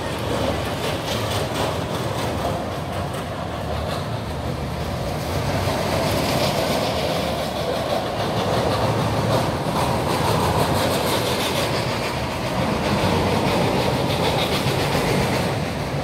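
A rail vehicle running along its track, a steady rumble with wheel clatter, growing somewhat louder about a third of the way in.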